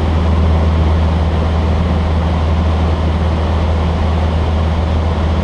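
Cessna 152's four-cylinder Lycoming engine and propeller in flight, heard inside the cockpit as a loud, steady low drone that holds one pitch throughout.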